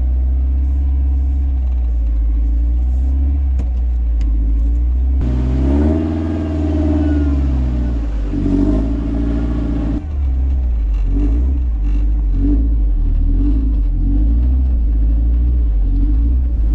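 Off-road vehicle engine running steadily, with a stretch in the middle where it revs up and down.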